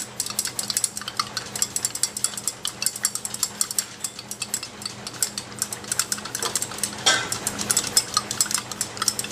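Glass stirring rods clinking and scraping rapidly against the sides of two glass beakers as calcium powder is stirred into an acidic solution, over a faint steady low hum.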